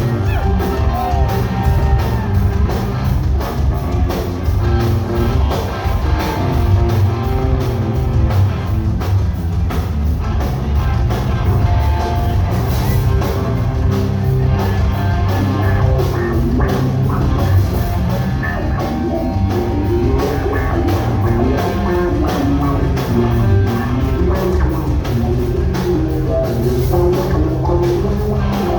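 Live rock band playing loud, with a steady drum kit beat and electric guitar.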